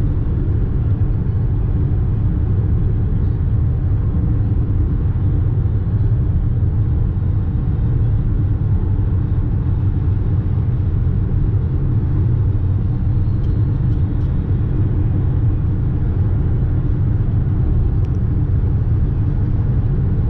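Steady low rumble of tyre, road and engine noise inside a car's cabin while cruising at highway speed.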